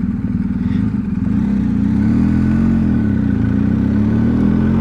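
BMW R1250 boxer-twin motorcycle engine idling, then pulling away about a second in, its note rising and dipping in pitch as the bike accelerates.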